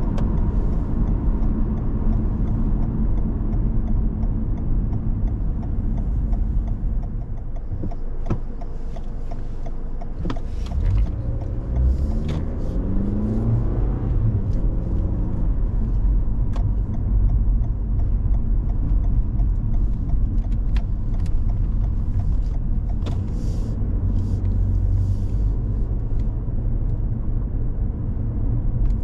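A car driving: steady engine and road rumble that eases off about eight seconds in, then the engine rises in pitch as the car accelerates around twelve seconds in. A few light clicks are scattered through it.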